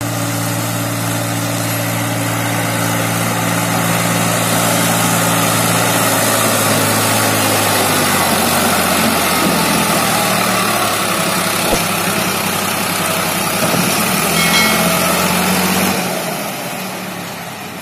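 Eicher diesel tractor engine running steadily as it hauls a heavily loaded sugarcane trailer past. The engine note shifts about halfway through and fades away near the end.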